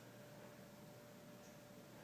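Near silence: room tone, a steady hiss with a faint steady hum.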